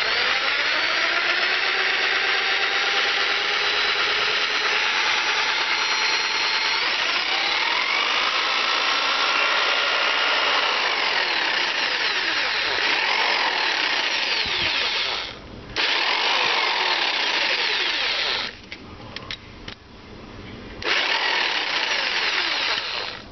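Expert Tools M1Q80 electric jigsaw running with no load and no blade, its reciprocating blade holder working again after repair. The motor spins up at the start and runs steadily, cuts out for a moment about 15 s in, stops a few seconds later, then runs again for about two seconds before stopping near the end.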